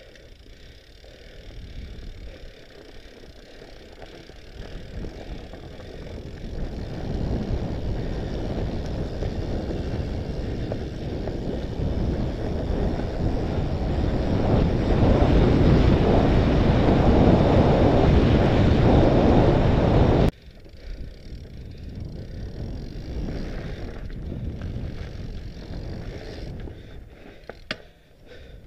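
Wind buffeting an onboard Contour HD action camera's microphone while a fat bike rolls fast over a gravel trail, with the rush of the fat tyres on loose stones. It grows louder as speed builds, then drops abruptly to a lower level about twenty seconds in.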